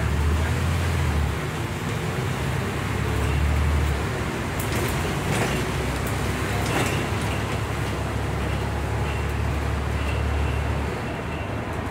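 Scania N94UB bus's diesel engine and drivetrain running under way, heard from inside the saloon: a deep steady drone that shifts a couple of times and drops away near the end, with a few light clicks around the middle.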